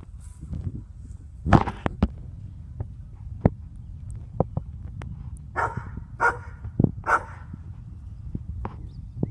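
Dog barking at a cat in short, separate barks, the loudest about a second and a half in and three more in quick succession later on, with sharp knocks between them.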